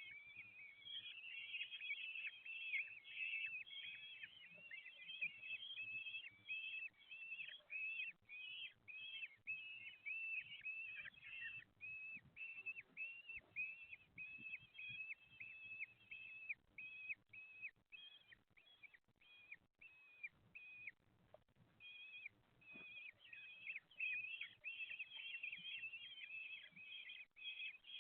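Common kestrel chicks giving shrill begging calls at feeding time: many short, high call notes in quick succession, often overlapping. The calls thin out in the middle and pick up again near the end.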